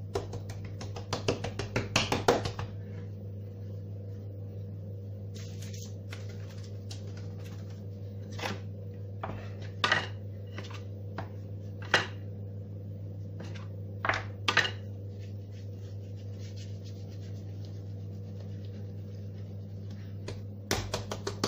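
Scattered light clatters and knocks of kitchenware being handled, a quick run of clicks at the start and single knocks every couple of seconds after, over a steady low hum.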